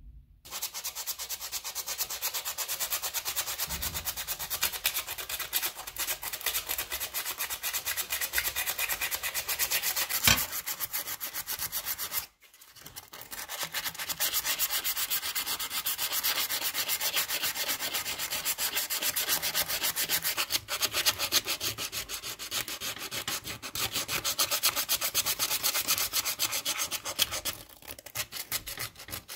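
Hand sanding of a sword's metal knuckle guard and hilt with 120-grit aluminum oxide abrasive cloth: fast back-and-forth rubbing strokes of grit on metal, with a short break about twelve seconds in and one sharp tap near ten seconds.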